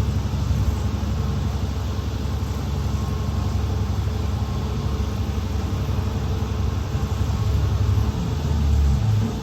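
School bus engine running with a steady low rumble, heard from on board the bus.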